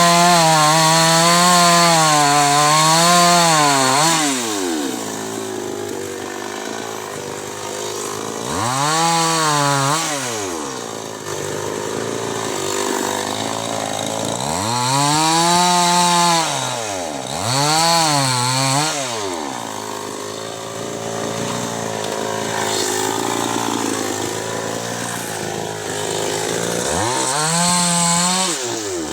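Chainsaw running during wood cutting, its engine revving up and dropping back several times, with quieter stretches between.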